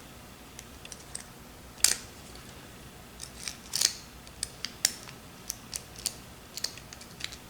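A lock pick clicking against the spring-loaded pin tumblers inside a Squire SS50C P5 five-pin padlock: a dozen or so sharp metallic clicks at uneven spacing, the loudest about two seconds in and again near four seconds.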